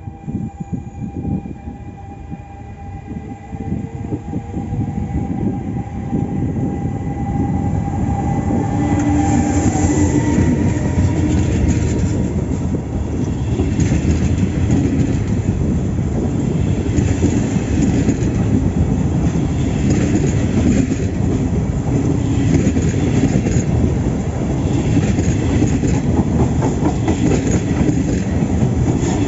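Train passing through the station, wheels clattering over the rail joints. The noise builds over the first several seconds, then stays loud.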